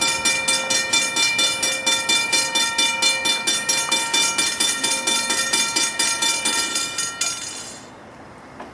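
Railroad grade-crossing bell ringing in quick, even strokes, about four a second, each stroke ringing on. It stops a little after seven seconds in.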